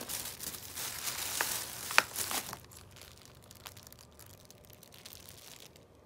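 Thin plastic shopping bags rustling and crinkling as they are handled and pulled open, with a sharp crackle about two seconds in. The rustling stops about two and a half seconds in, leaving only a few faint ticks.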